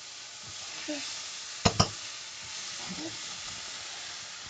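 Ginger and ground cumin sizzling as they fry in hot oil in a pan while being stirred, a steady hiss. Two sharp knocks close together a little under two seconds in.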